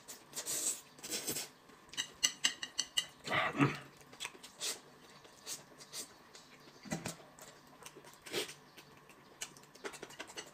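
A person eating noodles at close range: short, irregular slurps and chewing sounds, with a quick run of small clicks about two seconds in.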